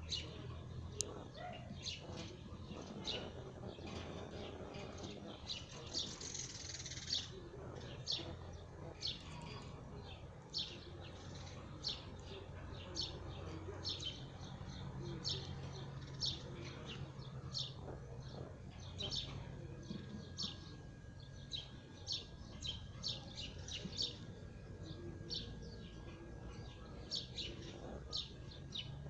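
Canaries chirping: short, high call notes, a few a second in an irregular scatter, over a low steady hum.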